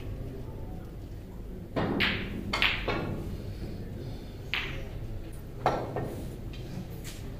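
Snooker balls clicking as they are struck and collide: about five sharp clicks over a few seconds, two close together about two seconds in, over a steady low hum.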